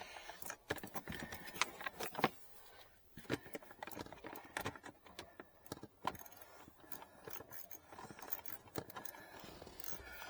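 Small metal tools clicking and rattling irregularly: a T20 socket on a quarter-inch universal joint and ratchet being handled while a panel screw is started.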